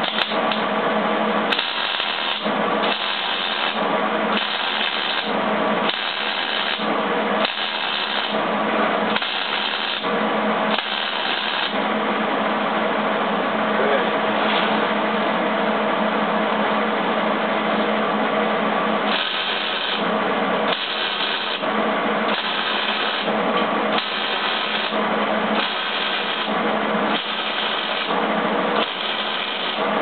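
Millermatic 175 MIG wire-feed welder welding quarter-inch steel, the arc crackling in short bursts about a second apart, with a pause of several seconds midway. A steady hum runs underneath.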